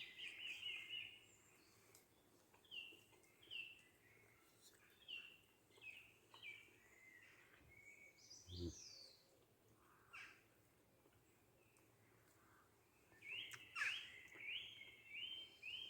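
Small songbird singing: scattered short chirps, then a fast run of notes near the end. A single soft thump about halfway through.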